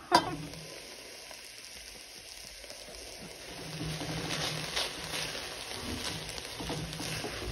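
A short knock at the very start, then quinoa, sweet corn and bell peppers sizzling and crackling in a hot steel pot. The sizzle grows a little louder about halfway through as a spatula stirs the mixture.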